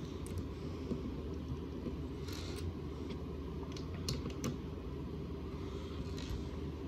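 Small plastic clicks of LEGO plates being pressed together and handled on a tabletop: a few scattered sharp clicks over a steady low hum.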